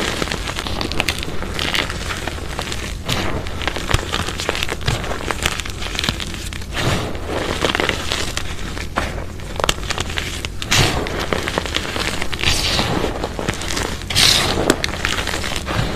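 Hands squeezing and scooping crushed, sun-dried reformed chalk powder and small chunks, giving continuous gritty crunching with a louder crunch every few seconds.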